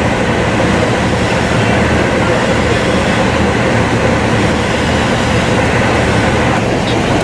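Steady, loud rumble of a large engine running without letup.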